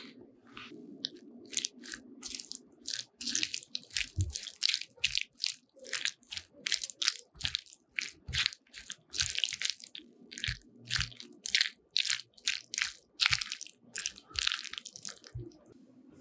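Spatula stirring a wet filling of corn kernels, shredded cheese and mayonnaise in a glass bowl: a run of squishy scraping strokes, about two a second.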